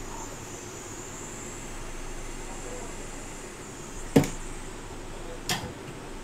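Steady background hum of a repair bench, with two sharp clicks about four and five and a half seconds in, the first the louder, as tweezers work a chip in a reballing stencil.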